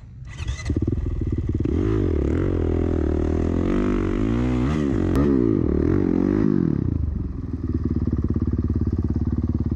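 Honda CRF450R dirt bike's single-cylinder four-stroke engine riding through sand, revving up and down several times, then settling to a steady note near the end.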